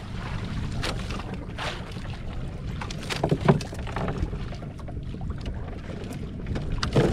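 Steady wind rush on the microphone aboard a small outrigger boat at sea, with scattered clicks and knocks as the hooked grouper is handled and unhooked, the loudest about three and a half seconds in and near the end.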